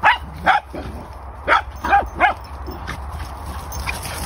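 Dogs barking and yipping as they play-fight, about five short sharp barks in the first two and a half seconds, then quieter.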